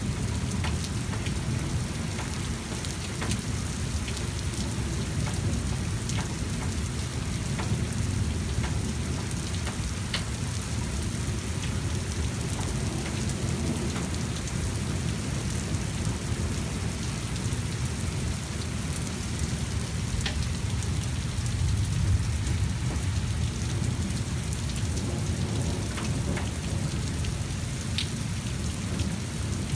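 Steady rain falling in a thunderstorm, with a low rumble of thunder underneath that swells a little about two-thirds of the way through, and scattered sharp ticks of drops landing close by.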